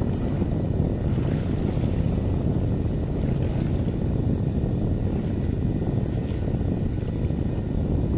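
Steady wind buffeting the microphone, a low rumbling noise with no breaks.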